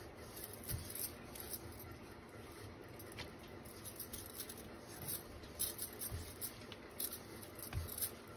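Wooden rolling pin rolling out a thick sheet of stiff dough on a silicone mat: faint rolling and rubbing, with a few soft knocks and light clicks at irregular moments.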